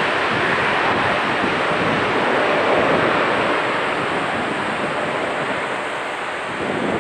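Jet airliner engines roaring as an aircraft passes, loudest about three seconds in and then slowly fading.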